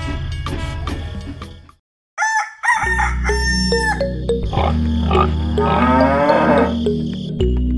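Farm-animal sound effects, chickens clucking and crowing, over a background music track with a steady bass line. They start about two seconds in, after the earlier sound fades out into a brief silence.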